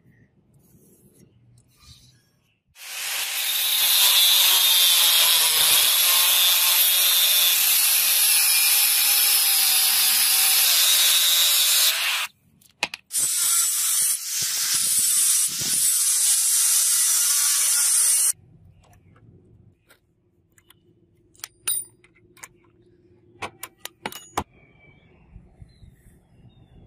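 Angle grinder with an abrasive disc cutting into a steel blade blank along a marked line. It starts about three seconds in, cuts steadily for about nine seconds, pauses briefly, then cuts again for about five seconds. After it stops come a few light clicks and taps.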